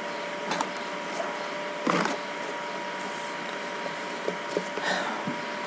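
Steady background hiss of the recording with a faint constant whine, broken by a few short soft clicks or knocks.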